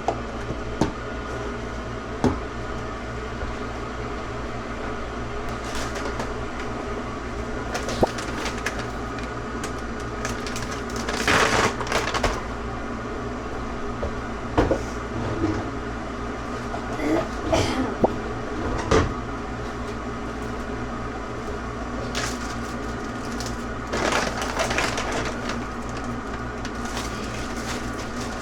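A steady mechanical hum, like an appliance running, with scattered clicks, knocks and short rustling bursts of things being handled.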